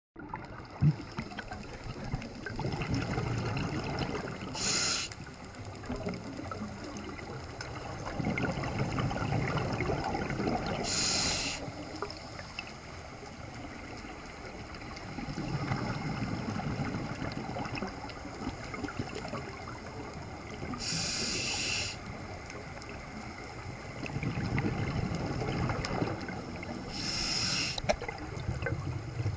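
Scuba regulator breathing heard underwater through the camera housing. A brief hiss of inhalation comes about every six seconds, four times in all, and each alternates with a longer, low bubbling rumble of exhaled air.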